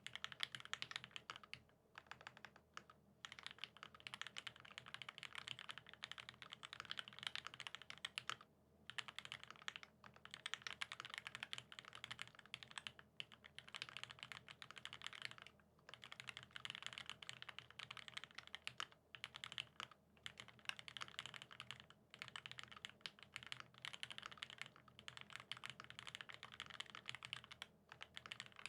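Continuous typing on a Satisfaction75 mechanical keyboard with lubed vintage Cherry Top SP Star switches, a brass plate and GMK keycaps. Rapid key clacks come in runs of a few seconds, broken by short pauses.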